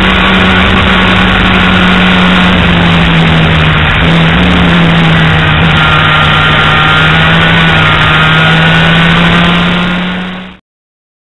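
Race vehicle's engine heard from an onboard camera at speed, one steady engine note over a loud rushing noise. The note dips briefly about four seconds in and then comes back up. The sound fades out and stops shortly before the end.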